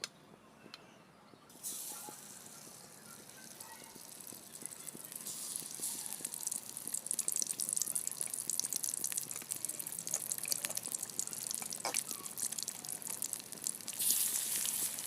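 Marinated chicken pieces sizzling and crackling in hot oil in a kadai as they start to fry. The sizzle starts about two seconds in and builds over the next few seconds as more pieces go in, then holds steady with dense crackling.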